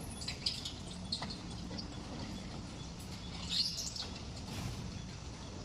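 A few short bird chirps over a steady low background rumble.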